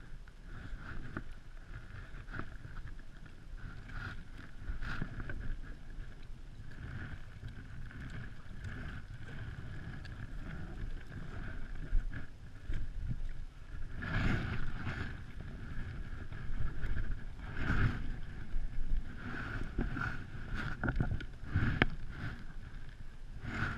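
Wind rumbling on the microphone, broken by rustles and several short knocks and scrapes, more of them in the second half, as a landing net and fishing rod are handled against a plastic kayak.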